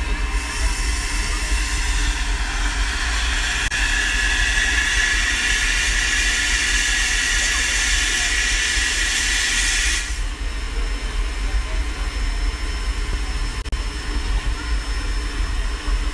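Steam locomotive venting steam: a loud, steady hiss for about ten seconds that cuts off suddenly.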